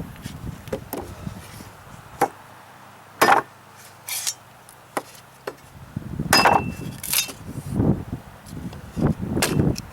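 Cold Steel Heavy Machete, its edge freshly thinned and sharpened, chopping into wood: a series of about eight sharp, separate chops, roughly one every second.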